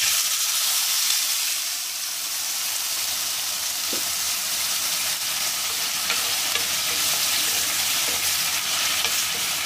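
Water poured into a hot pan of oil-toasted vermicelli, hissing and sizzling as it boils up, with a spatula stirring through it. The hiss starts suddenly and then stays steady.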